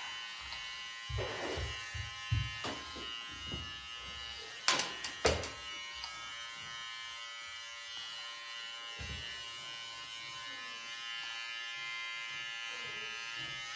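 Cordless electric hair clipper running with a steady hum while trimming a child's hair. A few soft knocks in the first seconds and two sharp clicks about five seconds in, the loudest sounds.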